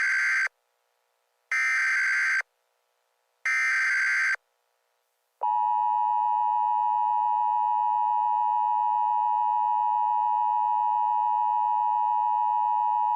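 Emergency Alert System SAME header: three buzzy digital data bursts, each about a second long with a second's gap between, followed by the steady EAS attention tone held for about eight seconds and cut off sharply. This is the signal sequence that opens a new emergency alert.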